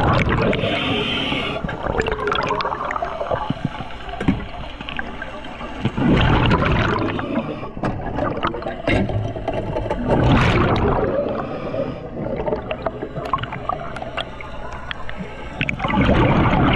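A scuba diver's regulator exhaling, heard underwater: a loud rush of bubbles about every four to six seconds, four times in all, with faint crackling clicks in between.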